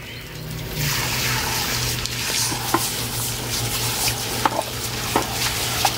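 Garden hose spray nozzle spraying water onto and into glazed clay flower pots, rinsing off dust: a steady hiss of spray on the clay that starts about a second in, with a few small splash ticks.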